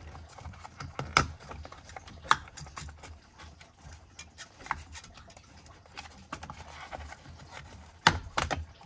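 Hands working a hard plastic battery cover under a truck's hood: scattered clicks and light rattles of the plastic and its clips, with a few louder clicks near the end.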